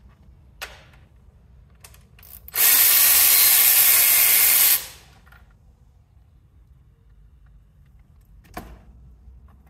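Cordless ratchet running in one steady whir for about two seconds. A few light clicks and knocks of tool handling come before it, and one more near the end.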